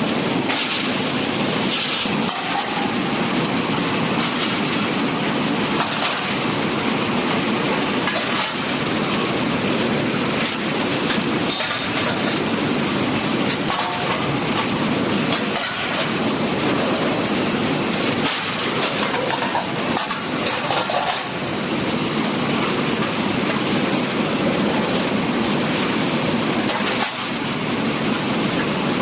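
Flight-type conveyor commercial dishwasher running: a steady rush of spraying water and rattling conveyor, with brief sharp clinks every few seconds, typical of plates being set on the conveyor.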